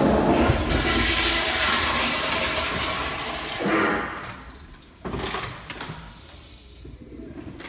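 Toilet flushing: a loud rush of water that eases off after about four seconds, followed by a quieter rush of water about five seconds in.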